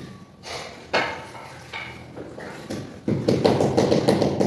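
Rubber mallet tapping a marble floor tile down into its mortar bed to set it level. There is a single knock about a second in, then rapid repeated taps start again about three seconds in.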